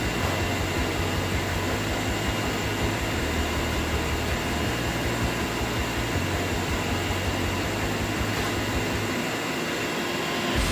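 Steady machine drone of a CNC wire-cut EDM machine and its workshop running: an even hum with a few faint constant tones and no sudden knocks.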